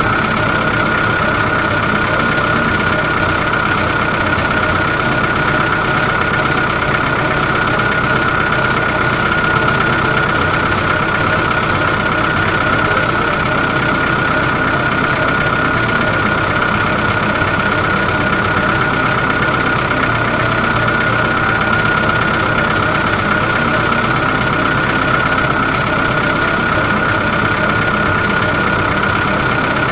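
Engine-like running sound, steady and unchanging, with a constant high-pitched whine over a low rumble.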